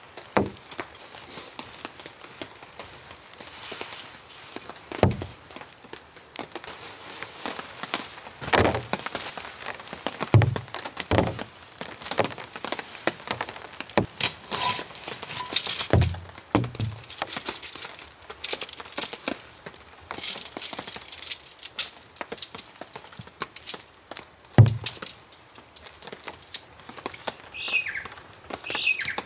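A Nemo Kunai 2P tent being pitched: its nylon fabric rustles and crinkles while the tent poles are handled, giving scattered clicks, knocks and several dull thumps.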